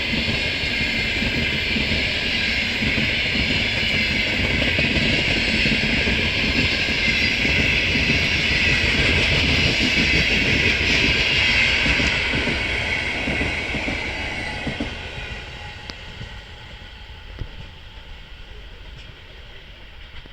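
Passenger train coaches rolling past at speed over the station switches, a steady loud rumble and hiss of wheels on rail with some clickety-clack. About twelve seconds in it begins to fade as the train pulls away, dying to a faint rumble with a few distant clicks.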